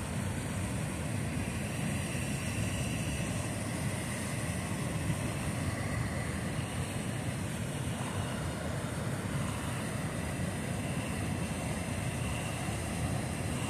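Steady rush of fast-flowing river water, with a low rumble underneath.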